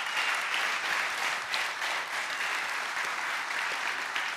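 A large audience applauding, a steady dense clapping.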